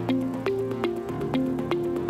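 Upbeat corporate-style background music: a steady pattern of short pitched notes, about three a second, over a held bass.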